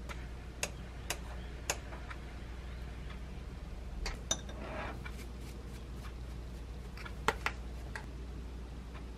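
Utensils tapping and clinking against a ceramic bowl and frying pan as curry is served over rice, mostly metal chopsticks on the bowl. There are scattered sharp taps, two in quick succession about three-quarters of the way through, over a steady low hum.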